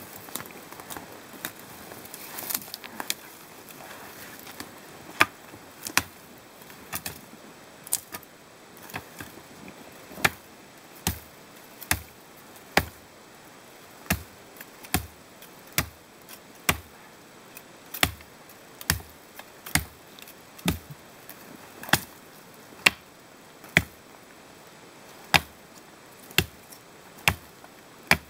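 Brush stems being chopped with a hand-held blade: sharp chops at about one a second, from about five seconds in. Snow-laden branches rustle during the first few seconds.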